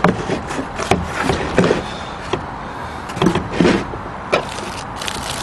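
Hard plastic tool case of a brake-bleeding vacuum pump kit being handled: irregular clicks and knocks of the lid and case, with rustling of the plastic-wrapped contents, busiest near the end.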